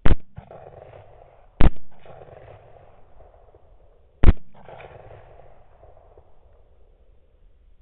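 Three rifle shots from a Palmetto State Armory KS-47 firing 7.62x39 rounds: one right at the start, a second about a second and a half later, and a third about two and a half seconds after that. Each shot is followed by a fainter noisy tail lasting about a second.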